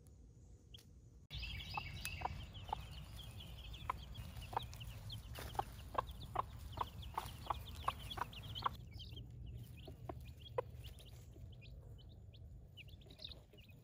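A mother hen giving a steady run of short, low clucks, about two or three a second, calling her chicks to her. The chicks peep high and thin, mostly just before the clucking starts and again near the end.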